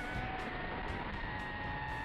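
Motor and propeller of a radio-controlled plane whining at a steady pitch that drifts slightly, over a rushing noise.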